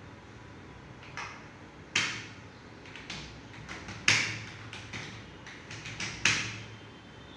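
Keys clicking on a computer keyboard as a passage is typed, with three louder sharp thumps about two seconds apart.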